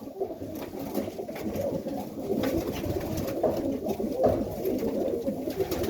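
Serbian highflyer pigeons cooing in a breeding loft, many low coos overlapping without a break.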